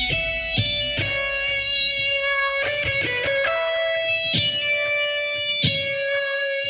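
Instrumental electric guitar music: a melodic line of single plucked notes that ring on, changing pitch every second or so.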